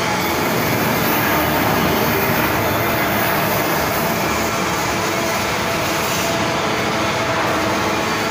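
Steady machinery noise, an even hiss and rumble with no clear rhythm or single events.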